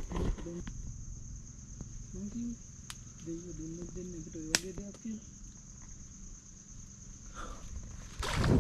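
Insects chirring in one steady, unbroken high-pitched drone. A faint murmur of voices and a couple of sharp clicks come partway through, and a loud burst of noise arrives near the end.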